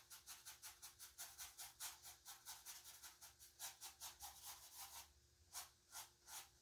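Paintbrush rubbing acrylic paint onto a stretched canvas in quick, short strokes, about five a second, faint. The strokes pause briefly near the end, then a few more follow.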